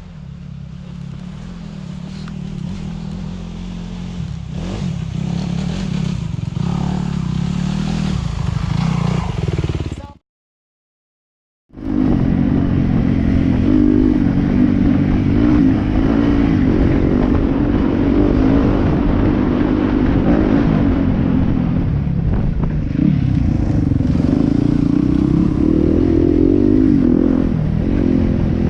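A 2018 Yamaha WR250F's single-cylinder four-stroke engine running through an Akrapovic exhaust while being ridden. It grows steadily louder over the first ten seconds, cuts out completely for a moment, then comes back louder, with the revs rising and falling.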